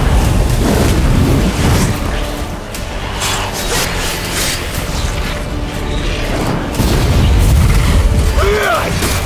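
Animated-film battle soundtrack: dramatic score under deep booms, explosions and crashing impacts, with a short shrill cry near the end.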